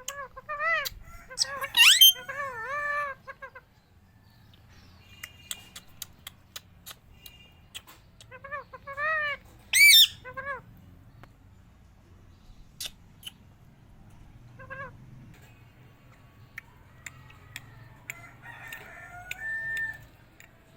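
Indian ringneck parrots calling: two bursts of quick, repeated chattering notes, one near the start and one around nine seconds in, each with a single sharp shriek. A short call follows near fifteen seconds, with small clicks scattered between.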